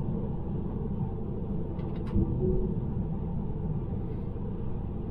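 Steady road and tyre rumble inside the cabin of a moving 2021 Tesla Model 3, with a couple of brief clicks about two seconds in.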